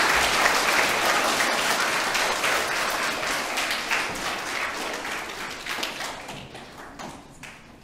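Audience applauding, the clapping slowly dying away to a few scattered claps near the end.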